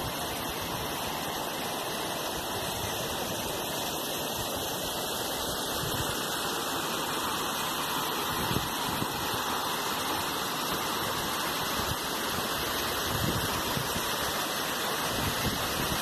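Mountain river water rushing over rocks, a steady unbroken rush.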